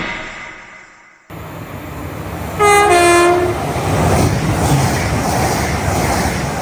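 A passing train sounds its two-tone horn, a high note followed at once by a lower one, together under a second long. The rumble and rush of the train going by continues after it. The train noise comes in abruptly about a second in.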